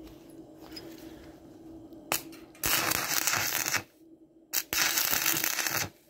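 Arc welding a steel three-piece door hinge with a stick electrode. A quick strike of the arc comes about two seconds in, then two runs of crackling arc of about a second each, with a short break between them.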